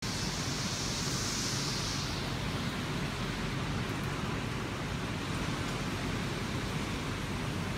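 Heavy rain pouring down, a steady dense hiss of drops on a swimming pool and wet paving. A brighter, higher hiss on top fades out about two seconds in.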